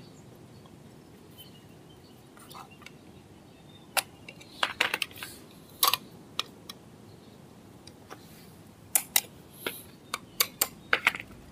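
Sharp clicks and light clinks of rear drum-brake shoes and their handbrake hardware being fitted by hand, scattered in a few short clusters with quiet stretches between.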